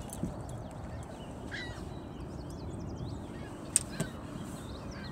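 Small birds chirping faintly over a steady low background rumble, with one sharp click a little under four seconds in.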